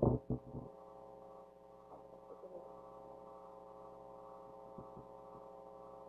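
A few short knocks at the very start, then a steady low electrical hum of room tone with a couple of faint ticks.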